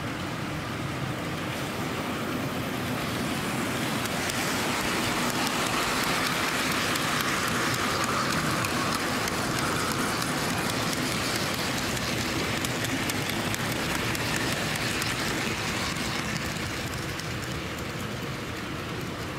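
OO gauge model freight train, a Hornby Class 60 diesel hauling a long rake of wagons, rolling past on model track. Its wheels make a rushing rumble with rapid light clicks that swells about two seconds in, is loudest in the middle, and fades away near the end.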